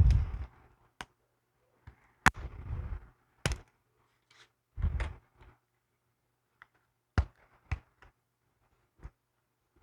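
Close handling of a small cosmetic product and its packaging while opening it: a few heavy thumps with rustling, between sharp clicks and taps of plastic.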